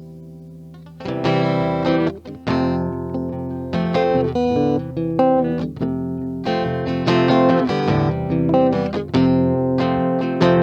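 Guitar playing the intro of a song: a faint chord dies away, then from about a second in, chords are played in a steady rhythm.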